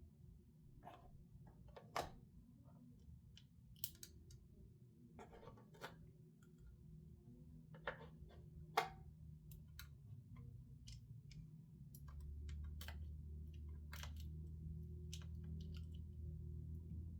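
Faint, scattered clicks and taps of small screws and a screwdriver against the graphics card's metal parts, as the screws are started a few threads in while the cooler is refitted. A low, steady hum comes in about twelve seconds in.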